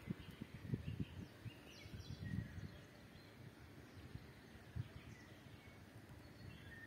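Faint outdoor birdsong: scattered short chirps and brief phrases from small birds. In the first few seconds there are also irregular low rumbles and knocks.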